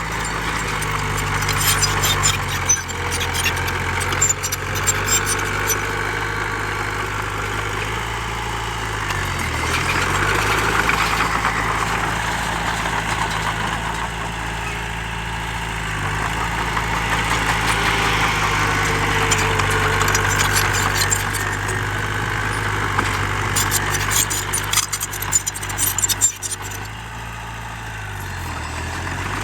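Heavy diesel engine of earthmoving machinery running steadily. Its pitch dips briefly twice, about a third of the way in and near the end. Bursts of clattering come early and again near the end.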